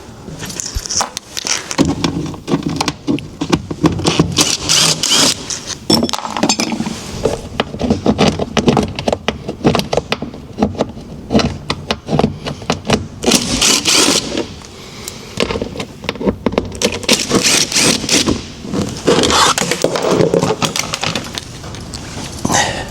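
Screws being undone with a T30 Torx bit and a plastic door pocket being worked off a van's cab door: repeated clicks, metallic clinking and scraping of plastic.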